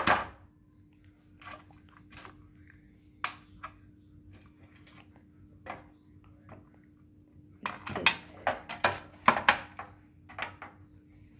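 Small plastic clicks and taps as the parts of a plastic toy piggy bank are handled and pressed together: a few scattered clicks, then a quick run of them about eight to ten seconds in, over a faint steady hum.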